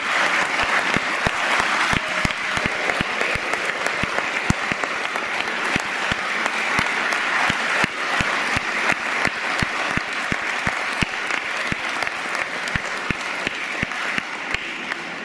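Crowd applauding: dense, steady clapping that slowly thins and grows quieter toward the end.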